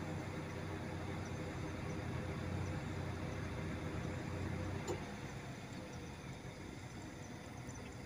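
Steady low mechanical hum over a soft background hiss, with faint, scattered bird chirps high above it. A single click about five seconds in, after which the hum eases off slightly.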